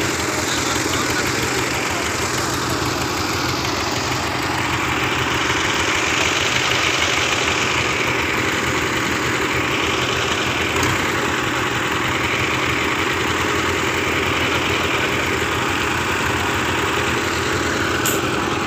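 Diesel tractor engine running steadily.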